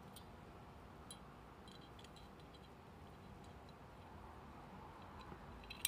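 Near silence with a few faint clicks of small steel parts as the firing-pin safety is fitted back into a SIG P228 pistol slide by hand, and one sharper click near the end.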